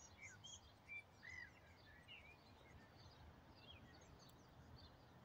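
Near silence with faint birdsong: scattered short chirps and brief whistles, a few slightly louder about one second in.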